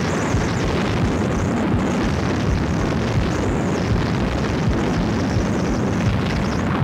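Heavy wind buffeting a camera-mounted microphone carried by a speed skier at high speed: a steady rushing noise with a low, fluttering rumble.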